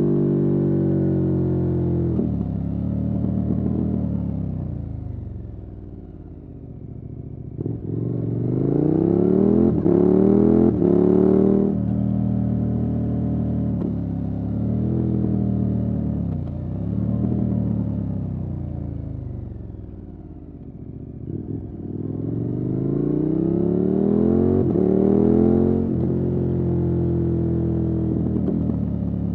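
KTM 1290 Super Adventure S V-twin running through a Wings aftermarket exhaust under a rider's throttle. The engine falls off twice, quieter and lower in pitch, and in between it accelerates hard twice, its pitch climbing through the gears.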